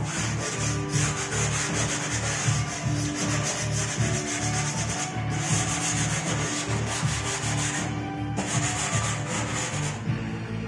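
Hard pastel stick scratching across sanded pastel paper in quick, repeated back-and-forth strokes, with brief pauses a few times.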